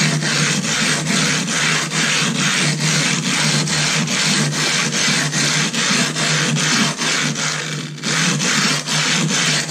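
Silicon carbide sharpening stone being lapped by hand on a glass plate with loose abrasive grit: a gritty scrape in quick back-and-forth strokes, about four a second, with a brief pause about eight seconds in. This is the stone's face being ground flat.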